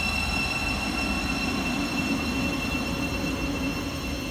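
Siemens Class 717 electric multiple unit at the platform: a steady high-pitched electrical whine over a low rumble that eases slightly near the end.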